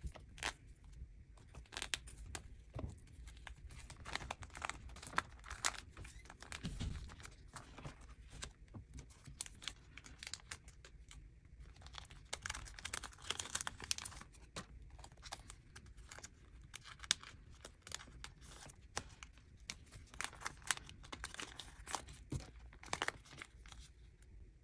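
Plastic card sleeves and binder pocket pages crinkling and rustling as photocards are handled and slid into the pockets, with many small irregular clicks and taps. The handling runs fast, as in sped-up footage.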